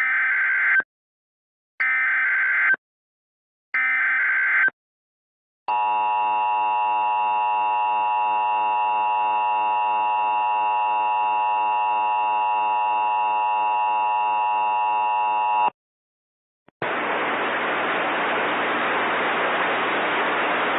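Emergency Alert System SAME header: three short data bursts about a second apart, then the two-tone EAS attention signal held steady for about ten seconds. After a second's break a steady hiss sets in.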